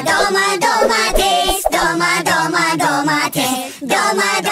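Channel intro jingle: music with a singing voice throughout.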